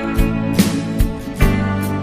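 Instrumental pop-rock band music: electric guitar and keyboard over a steady drum beat, with no singing.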